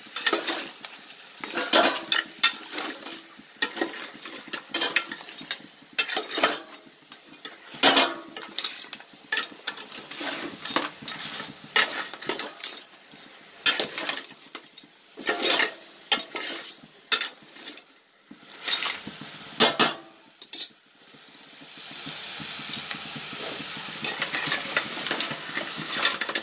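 A spoon stirring pre-cooked crabs through an onion-tomato masala in a metal pot: irregular knocks and scrapes of spoon and shells against the pot over a frying sizzle. After about twenty seconds the stirring stops and only a steady sizzle remains.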